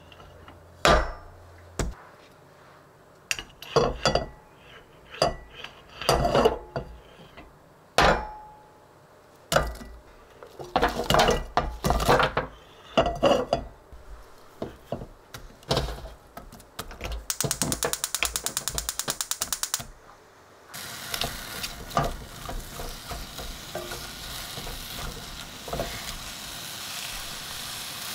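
A run of knocks and clatters from the saucepan and onion slices. Then, about two thirds in, a gas stove's igniter clicks rapidly for about two and a half seconds. The burner lights, and the butter and onions start a steady sizzle in the pan.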